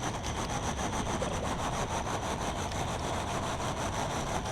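Diesel tow truck running steadily with a fast, even pulse and a thin high whine over it.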